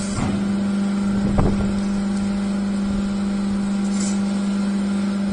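Hydraulic baler's power unit humming steadily, with a single knock about one and a half seconds in and a short hiss near the end.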